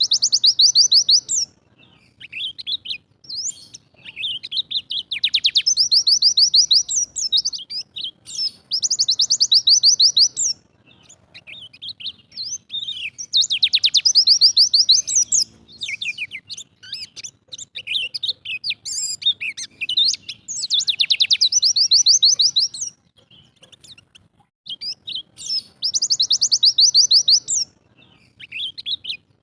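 A white-eye (pleci, the Bali yellow-breasted type) singing. It gives repeated bursts of very rapid high chattering notes, each about two seconds long and a few seconds apart, with short chirps between them. This is the rapid-fire 'tembakan' song that keepers prize.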